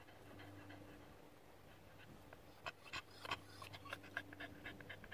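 Dog panting softly, a quick run of short breaths, about four or five a second, that starts about halfway through after a quieter stretch.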